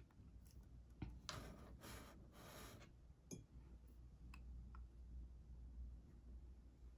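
Near silence: quiet room tone with a low hum, a few faint scattered clicks and some soft rustling.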